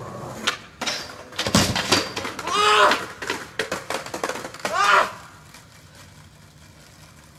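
A skateboarder slamming onto concrete after a failed rail attempt: a few sharp clattering knocks of board and body hitting the ground, the hardest about a second and a half in, followed by two long cries of pain.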